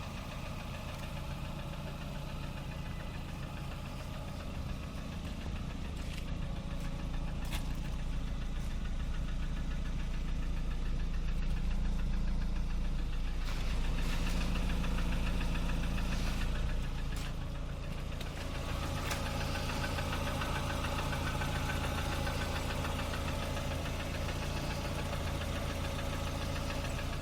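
Lada Kalina 1.4 16-valve four-cylinder engine running with a rapid, even knocking that the owner cannot place. It gets a little louder through the middle, then drops back about two-thirds of the way in.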